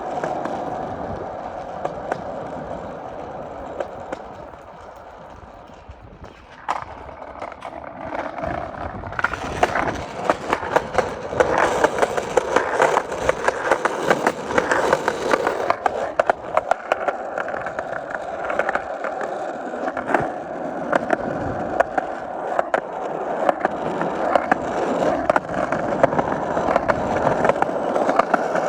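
Skateboard wheels rolling, a steady rolling noise with frequent sharp clicks. It fades quieter for a few seconds early on, then grows louder again about a third of the way in.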